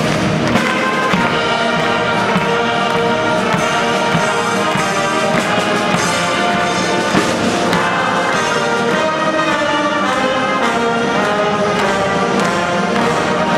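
Carnival brass band playing a tune loudly: trombones, trumpets and tuba over a bass drum.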